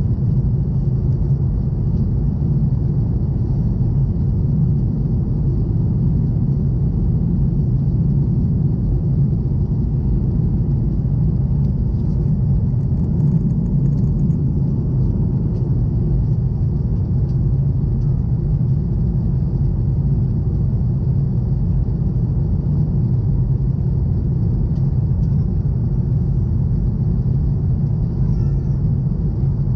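Steady, even rumble of a Boeing 737 cabin in flight: the jet engines and the air rushing past the fuselage, heard from inside at a window seat.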